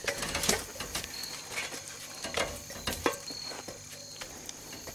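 Irregular light knocks and clicks of someone climbing an aluminium extension ladder, boots and hands meeting the metal rungs.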